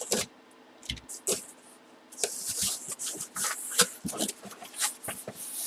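Cardboard box opened by hand and a boxed helmet slid out past the flaps. There are a few sharp clicks and knocks, then from about two seconds in a busy run of cardboard scrapes and rustles.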